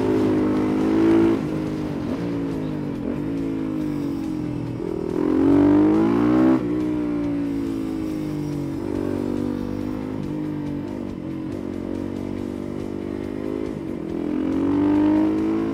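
Motorcycle engine under way, its pitch rising and falling with throttle and gear changes; the biggest climb comes about five to six seconds in and falls away sharply at a shift.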